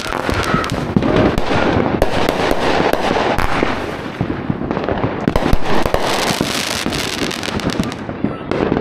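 Consumer aerial fireworks going off in rapid succession: launch shots, bursts and dense crackling with no pause.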